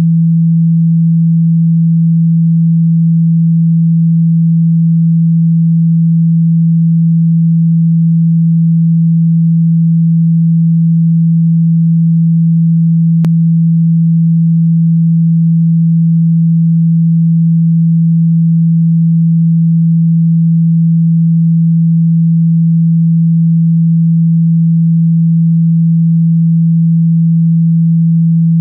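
A loud, steady, low pure tone held without change: a speaker-cleaning sine tone, played to shake trapped water and dust out of a phone's loudspeaker. A faint click comes about halfway through.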